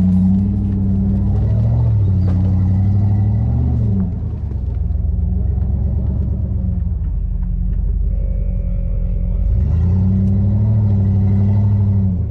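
A four-wheel-drive vehicle's engine running hard, its note rising and holding, dropping back about four seconds in, then climbing again near ten seconds and easing off near the end.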